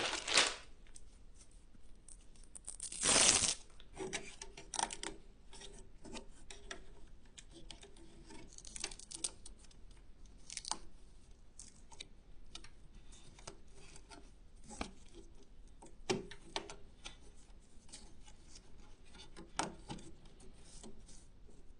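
Hands handling PC power cables and connectors: scattered small clicks and rustling, with a louder scraping rustle about three seconds in.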